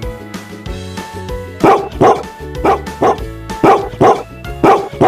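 A dog barking in quick pairs, "woof-woof", about eight barks starting a second and a half in, over light children's background music.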